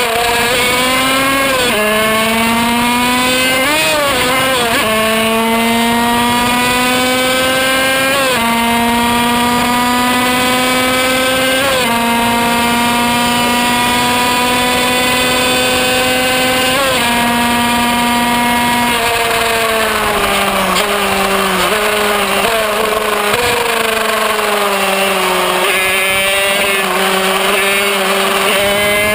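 Kreidler Van Veen 50cc single-cylinder two-stroke racing engine screaming at high revs under full throttle. Its pitch climbs steadily and drops back at each upshift of the six-speed gearbox, four or five times in the first half. About two-thirds of the way through the revs fall with short blips as it shifts down, and near the end the engine pulls hard again.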